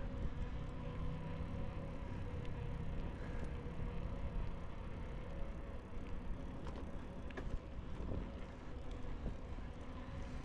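Wind rushing over a chest-mounted action camera's microphone while riding a Trek 3700 mountain bike on a smooth paved cycle path, with a faint steady hum underneath and a few light clicks about two-thirds of the way through.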